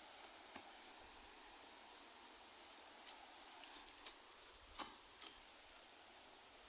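Faint steady rush of distant water, with a few light clicks and rustles between about three and five seconds in.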